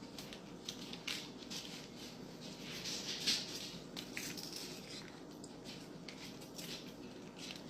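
Repeated short, crisp crunching and crinkling sounds at an uneven pace, loudest about three seconds in, typical of handling crisp food or packaging while preparing a salad.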